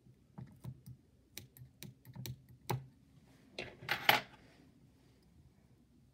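Small fly-tying scissors clicking and snipping at the vise as leftover poly yarn is trimmed: a quick string of light, sharp clicks, then a louder scraping knock about four seconds in.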